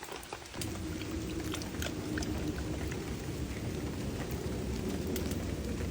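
Rain falling: a steady hiss with scattered drop ticks, starting about half a second in.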